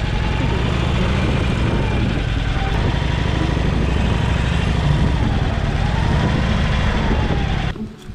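Motorcycle engine running as the bike rides slowly along a street, a steady low rumble with wind and road noise, stopping abruptly near the end.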